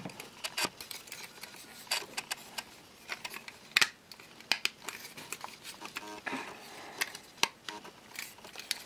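Irregular clicks and taps of the hard plastic parts of a Transformers Generations Jetfire figure being pressed and pushed together by hand, as its leg pieces fail to tab into place.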